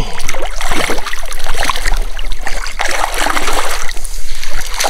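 Shallow stream water splashing and sloshing while a hooked brown trout is brought in through the shallows.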